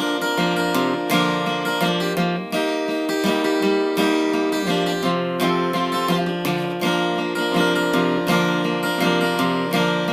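Acoustic guitar strumming chords in a steady rhythm, about two strums a second, as the instrumental intro to a folk song.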